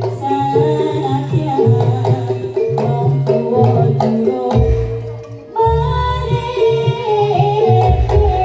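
Live jaranan gamelan music: a wavering sung melody over repeated struck metal notes and heavy drum beats. The music drops away briefly about five seconds in, then comes back in full.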